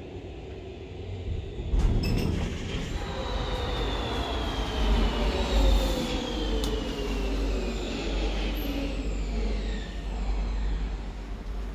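Hydraulic elevator car in motion: a click about two seconds in, then a steady low rumble with a high whine that falls slowly in pitch over several seconds.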